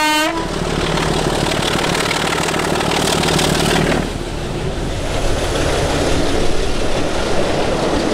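Class 25 diesel locomotive's horn toot cutting off just after the start. Then its Sulzer engine runs loudly as it passes close below. About four seconds in the engine sound drops away, and the coaches roll past on the rails.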